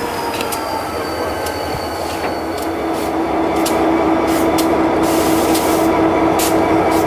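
Railroad wedge snow plow car rolling past close by, its blade shoving snow with a steady rushing hiss, steel wheels clacking on the rails about every half second. A faint squeal slides down in pitch during the first two seconds; about three seconds in the sound grows louder and a steady hum joins.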